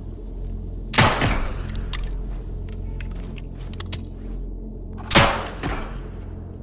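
Two shots from a Remington 1866 derringer pistol, about four seconds apart, each a sharp report with a short reverberant tail, with a few light clicks between them over a steady low hum.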